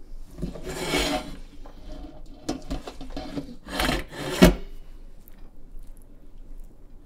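A kitchen utensil scraping and rubbing against cookware, with two strong scrapes about one and four seconds in and fainter ones between. A sharp knock about four and a half seconds in is the loudest sound.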